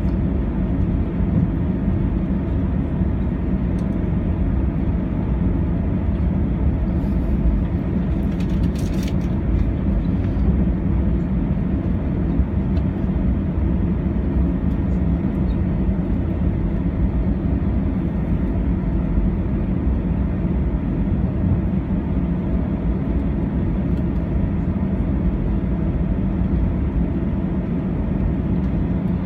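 Airbus A321 cabin noise while taxiing: a steady low drone and rumble from the engines at low thrust, heard from inside the cabin. A short rustle comes about eight seconds in.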